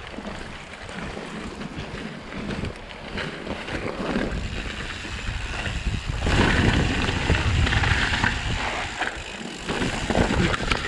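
Mountain bike riding noise: tyres rolling over gravel and dirt trail, the bike rattling over bumps, and wind on the microphone. It grows louder and busier about six seconds in, on the dirt singletrack.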